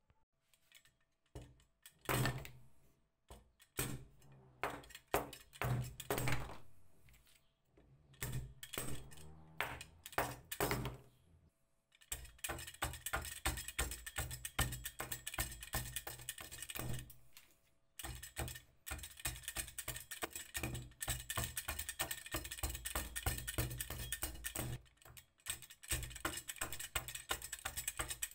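Hatchet blade of a Soviet axe-saw-chisel tool shaving curls off a thin wooden stick. A series of separate cuts comes first, then, from about twelve seconds in, a long run of quick, short scraping strokes.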